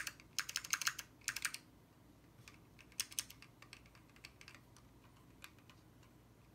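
Keys typed on an Alps-switch keyboard: fast runs of key clicks for about the first second and a half, then a few scattered single keystrokes.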